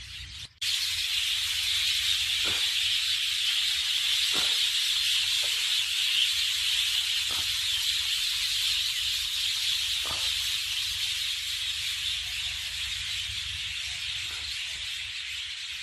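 A loud, steady hiss starts after a brief dropout about half a second in. A faint short falling call sounds every two to three seconds.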